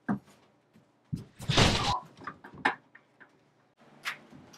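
Small wooden cupboard door being handled: a sharp knock at the start, a louder scraping rustle about a second in, then a few light clicks.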